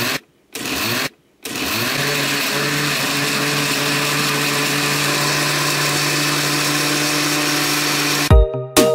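Oster countertop blender puréeing a whole tomato in its glass jar: two short pulses in the first second or so, then the motor runs steadily with a whirring hum. Music starts near the end.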